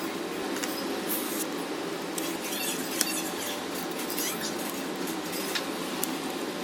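Small metal repair tools clicking and tapping on phone parts, with short squeaks and a sharp click about three seconds in, over a steady hum.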